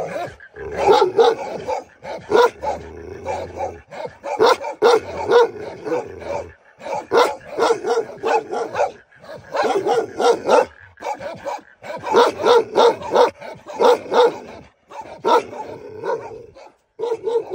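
Shepherds' guard dogs barking in quick runs of several barks, with short breaks between runs.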